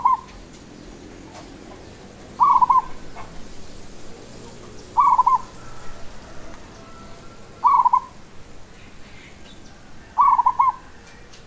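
Zebra dove (perkutut) cooing its song: short phrases of quick, rolling notes, repeated about every two and a half seconds.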